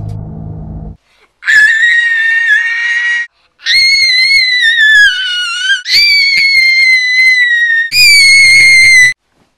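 A young girl screaming four times in a row, each scream long, very high-pitched and loud. Music cuts off about a second before the first scream.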